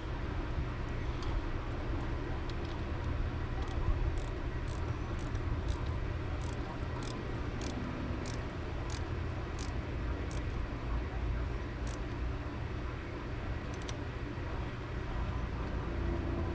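Scattered sharp metallic clicks of hand tools working on battery hardware under a car's hood, several a second at times, over a steady low rumble.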